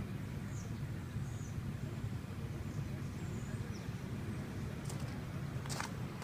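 Engine idling with a steady low rumble, with birds chirping in the first few seconds and footsteps crunching on gravel near the end.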